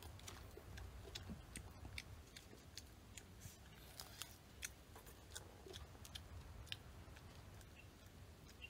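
Faint, irregular small clicks and snaps of grilled food being pulled apart by hand and chewed.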